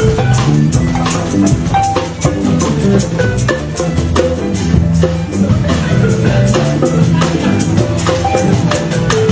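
A band playing Bubu music, the Temne style from Sierra Leone. Shakers and drums keep a busy, steady rhythm under pitched melodic and bass notes.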